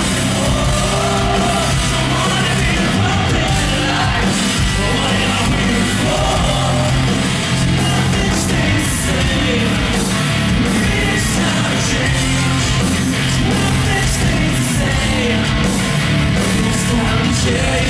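Live rock band playing loudly and without a break, with a singer's voice over the band.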